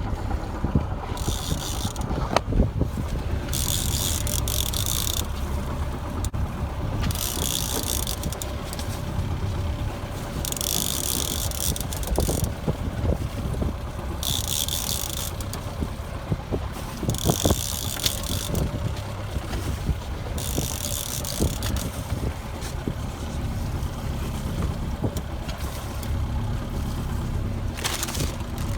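A boat running with a steady low rumble, with short hissing bursts about every three seconds.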